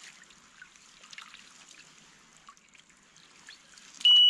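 Faint trickling and splashing of water as hands work in a keepnet at the water's edge. Near the end comes one short, loud, high beep from a Delkim electronic bite alarm, the signal that a fish is pulling on the line.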